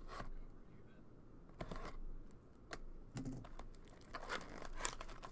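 Trading card box and packs being handled: a run of irregular light clicks and foil-wrapper crinkles as the packs are picked up and opened.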